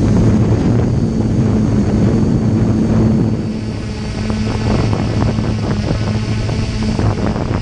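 Drone's motors and propellers buzzing steadily in flight, recorded close by the camera mounted on it, with wind buffeting the microphone. The level dips slightly about halfway through.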